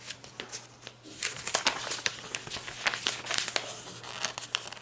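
Paper pages of a sticker album being turned by hand, rustling, with a run of quick crackles starting about a second in.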